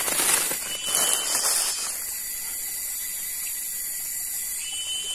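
Steady high hiss of outdoor ambience, with louder rustling handling noises during the first two seconds and two brief, faint high whistles, one about a second in and one near the end.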